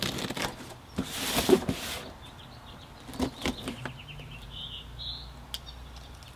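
Packing tape being ripped off the top of a cardboard box: two noisy tearing pulls in the first two seconds, the second the louder and longer, followed by a few light clicks and rustles of cardboard.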